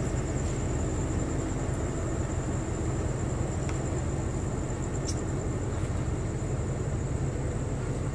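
Steady low diesel rumble from a Thai railway express train standing at the platform, with a steady high-pitched whine above it and a couple of faint ticks.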